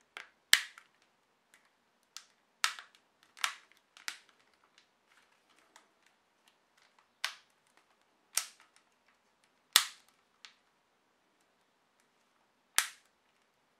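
Elephone P7000's removable plastic back cover snapping onto the phone body as it is pressed down along the edges: about ten sharp clicks at irregular intervals as the cover's clips seat one by one.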